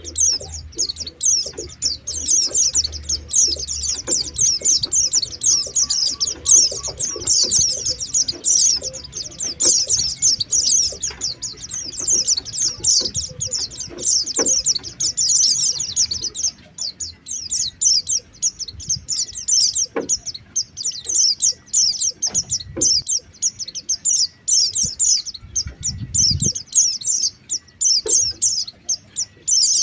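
Pleci (white-eye) chattering as a lure call: an unbroken stream of rapid, high, thin chirps that each sweep downward, many a second. A few faint clicks and a brief low rumble come in the second half.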